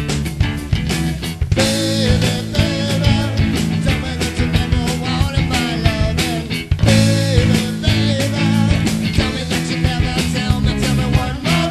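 Rock band playing, with guitar, bass and drums, and a singer coming in about two seconds in and singing in phrases.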